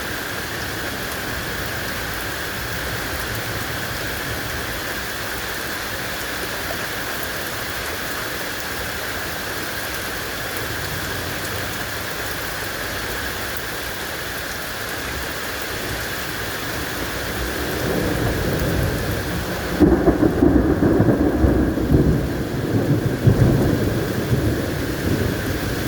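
Steady rain falling, then, after about two-thirds of the time, a long roll of thunder builds and rumbles loudly for several seconds before easing off.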